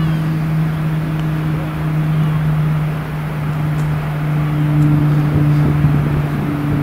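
Diesel hood locomotive running at low revs as it approaches slowly, a steady engine hum.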